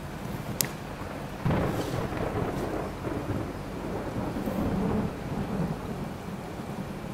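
Thunder rumbling over steady rain, with a sudden loud clap about a second and a half in and a second swell of rumbling a few seconds later.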